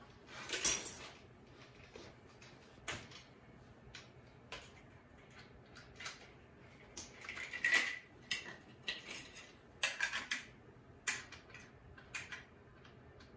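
Small metal tools and parts being picked up and handled: an irregular run of light clinks and clanks, one ringing briefly a little past halfway.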